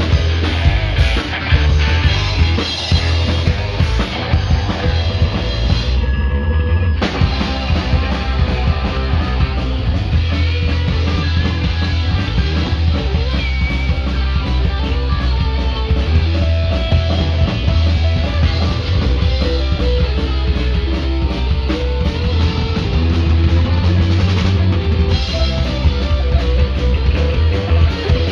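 Punk rock band playing an instrumental number on electric guitars, bass and drum kit, with no vocals. About six seconds in, the high end drops out for roughly a second before the full band comes back in.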